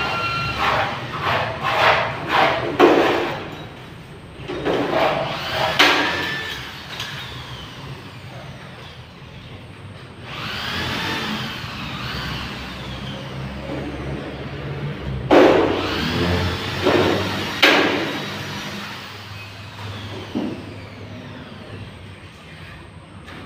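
Thin galvanized iron sheet being worked by hand: the sheet flexes and warbles, with bursts of sharp clicks and scraping, heaviest about two to three seconds in and again around fifteen to eighteen seconds in.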